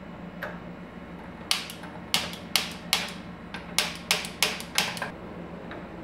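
Gas stove burner's spark igniter clicking, about nine sharp clicks over three and a half seconds as the burner is being lit.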